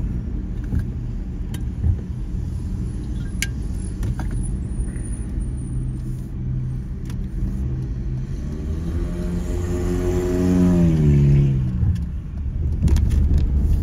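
Steady low street-traffic rumble, with one vehicle passing close: its engine tone rises, then drops sharply as it goes by, loudest a little over two-thirds of the way through. A few faint clicks also sound.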